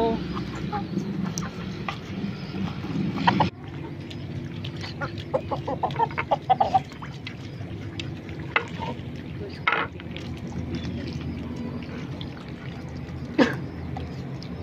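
Domestic ducks quacking in a short quick run about halfway through. Scattered sharp clicks come from beaks pecking at greens and dabbling in puddle water on concrete, over a steady low background hum.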